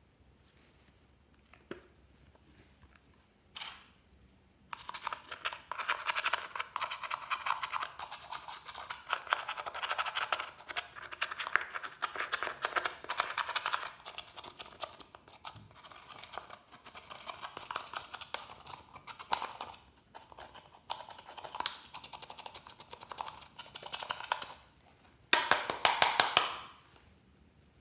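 Glossy slime being squished and mixed by hand, giving off dense sticky clicks and small pops that come in waves, with a louder crackling burst near the end.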